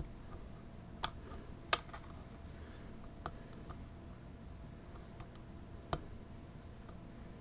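Lock picks and tension tool clicking and ticking against the pins inside a Fichet lock as it is being picked: a string of irregular light clicks, with two louder ones, one just under two seconds in and another about six seconds in.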